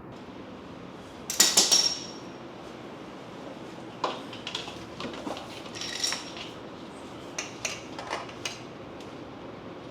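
Metal clinks and clanks of tools and parts being handled at the drain. A loud cluster of sharp, ringing clinks comes just over a second in, followed by scattered lighter clinks.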